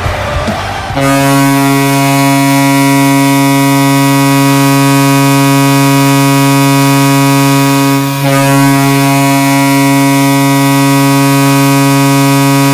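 NHL arena goal horn sounding one long, steady blast, broken by a brief dip about eight seconds in before it carries on.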